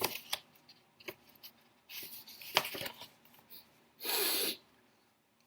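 Soft breath sounds from a person, in a few short breathy puffs with small clicks; the longest and loudest puff comes about four seconds in.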